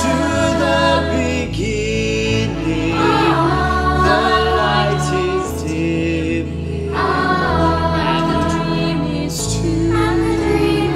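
Choir of young voices singing a musical-theatre ballad in harmony with solo leads, backed by piano, bass guitar and cello.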